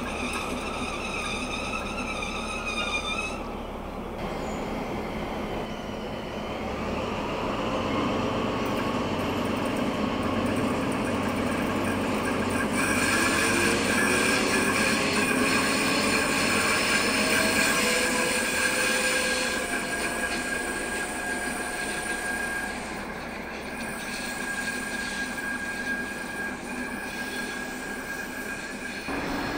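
Diesel locomotive pulling away and throttling up, its engine note rising as exhaust smoke pours out, with steady high-pitched wheel squeal as it rounds the curve. The sound swells to its loudest about halfway through, then fades as the locomotive moves off.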